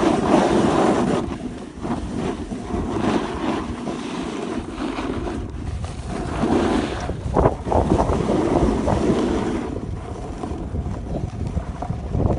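Wind rushing and buffeting on the microphone of a rider moving fast downhill, mixed with swelling scrapes of board or ski edges carving across packed snow.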